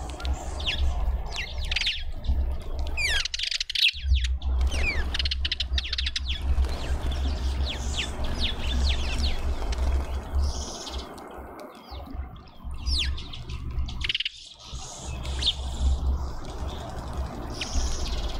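Small birds chirping and calling in many quick, high, overlapping notes, with a steady low rumble underneath.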